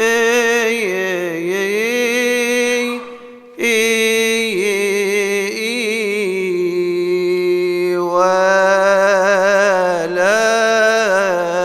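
A male voice solo chanting a Coptic Orthodox hymn in long, melismatic held notes with a wide vibrato, with a brief pause for breath about three seconds in.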